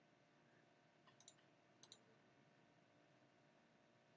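Near silence with a few faint computer mouse clicks: a small cluster about a second in and two more a little before two seconds.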